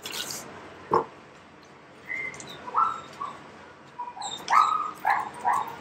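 Dog whining: a series of short, high-pitched whimpers, sparse at first and coming thick and fast in the last couple of seconds.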